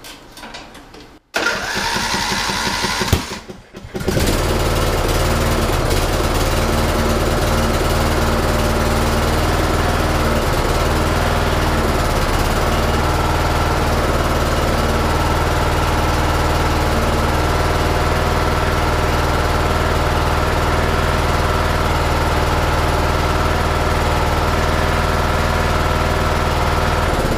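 Riding-mower engine being started: the starter cranks for a couple of seconds about a second in, then the engine catches and runs steadily.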